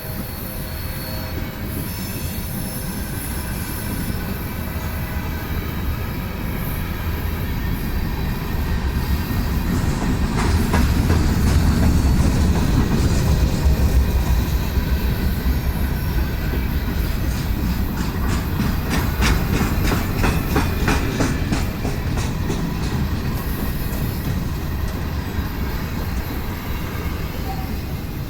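Freight train passing: the low rumble of the diesel locomotives under power swells to its loudest about halfway through. Then come the rolling cars, with rhythmic wheel clacks over the rail joints and some wheel squeal.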